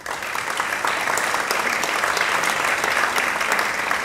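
An audience applauding. The clapping starts abruptly and holds steady.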